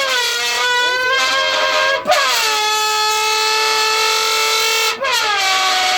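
A bent-up can blown into by mouth like a horn, imitating a Lamborghini's engine: three long, loud, horn-like blasts, each dropping quickly in pitch at the start and then holding steady.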